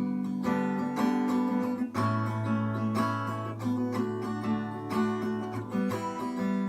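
Instrumental passage of a song: a strummed acoustic string instrument playing chords about twice a second, with a low note held through the middle.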